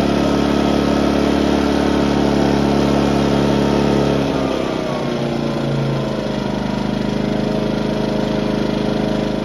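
Ryobi 2300 inverter generator's engine running steadily under load, then about four and a half seconds in its speed drops and it settles to a lower, quieter run as the load comes off.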